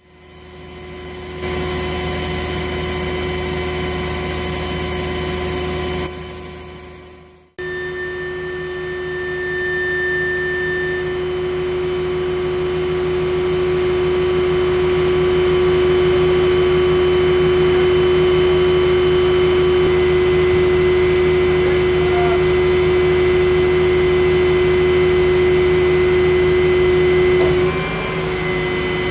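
Large knuckle boom crane's power pack and hydraulics running steadily with a constant whine while lifting a 105-ton test load. The sound breaks off briefly after about seven seconds and dips a little near the end.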